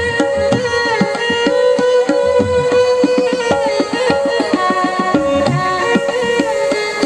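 Background music: a melody instrument playing over fast tabla-style hand-drum strokes.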